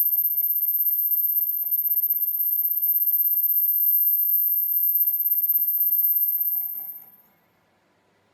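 A machine running with a steady, very high-pitched whine and a faint rhythmic ticking, about five a second, which fades out to near silence about seven seconds in.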